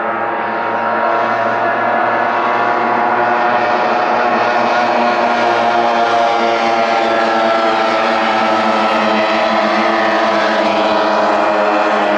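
Racing outboard motor running flat out, a steady held engine note that gets louder over the first two seconds and then stays level.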